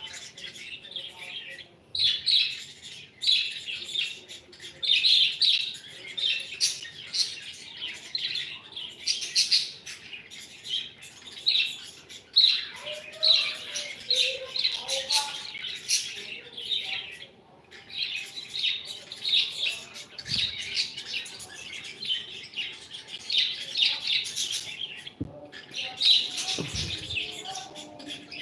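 Small pet parrots chirping and chattering in a rapid, continuous stream of short, high chirps, with a few brief pauses.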